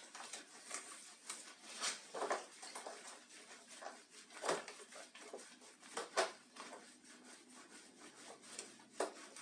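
Hands scrubbing a cat's wet fur during its bath: faint irregular rubbing strokes with a few louder scrubs.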